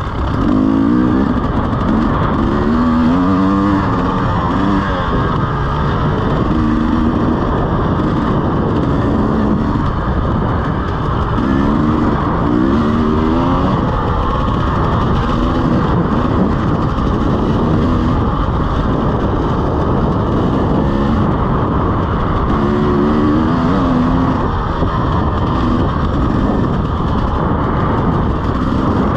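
KTM EXC 300 two-stroke dirt bike's single-cylinder engine being ridden hard, its pitch climbing and dropping again and again as the throttle is worked, over a steady rush of noise.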